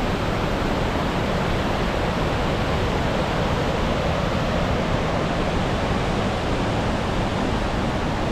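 Waterfall heard up close: a steady, even rush of falling water, unchanging in level.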